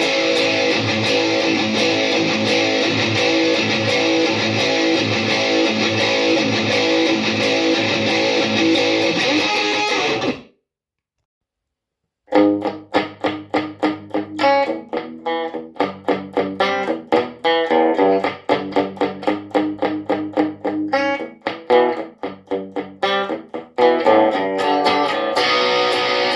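Guitar playing. About ten seconds of dense, sustained chords cut off suddenly into about two seconds of dead silence. Then come quick single picked notes, and full sustained chords return near the end.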